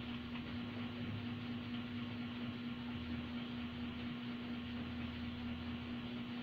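A small motor running with a steady hum over a constant hiss.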